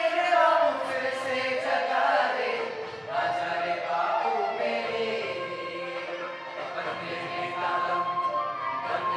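Three boys singing a song together, their voices sliding between notes and holding some notes long.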